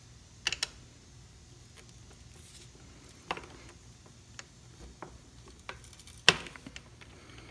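A few separate light clicks and knocks of a metal socket and extension bar being handled and fitted onto a bicycle crank arm's cinch bolt: two quick clicks about half a second in, scattered taps after, and the loudest knock near the end.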